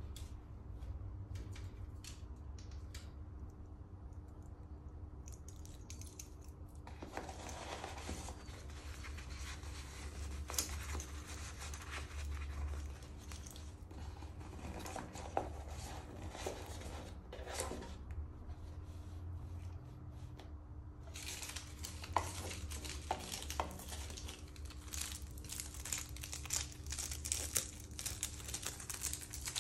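Clear plastic wrapping crinkling and crackling as it is handled, in two long stretches, after a few light clicks at first.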